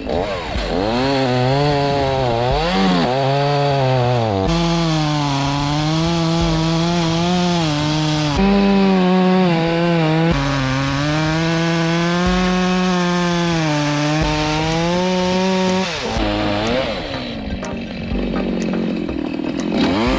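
Two-stroke chainsaw running at high revs and cutting into an ash trunk, its pitch wavering and sagging as the chain loads up in the wood. Near the end the revs drop and the sound turns rougher before climbing again.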